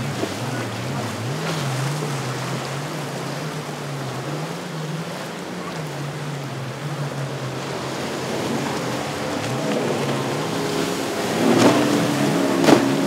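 Motorboat engines running through rough water. The drone rises and falls in pitch over a steady hiss of wind and spray. Near the end a higher, stronger engine note comes in, with a couple of sharp knocks.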